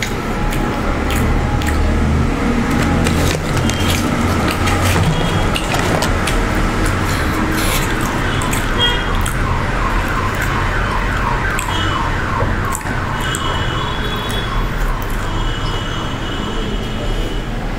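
Close-miked eating of fried chicken: sharp crunches, clicks and wet chewing as pieces are pulled apart and bitten, over a steady low hum. From about halfway a repeating warbling, alarm-like tone sounds in the background.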